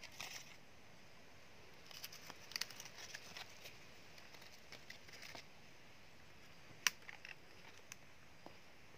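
Faint rustling and crackling of dry leaf litter in short spells, with a single sharp click about seven seconds in and a few light ticks after it.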